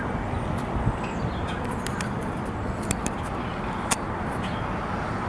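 Outdoor urban ambience: a steady hum of distant road traffic, with a few faint clicks.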